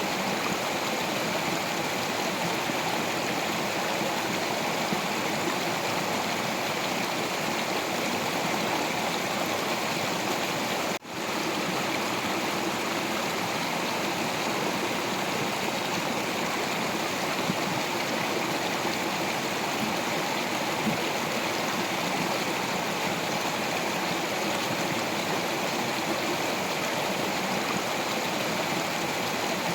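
Stream water running over rocks, a steady rushing. About eleven seconds in the sound cuts out for an instant and comes straight back.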